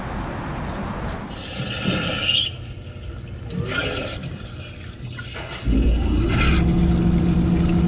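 A few short scrapes and clatters, then about two-thirds of the way in a loud, steady rush of water with a low hum sets in: river water flowing into the ship's open sea-water strainer.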